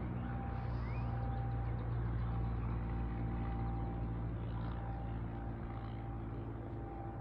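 Outdoor tornado warning sirens sounding steadily in the distance for a tornado drill test, over a steady low hum.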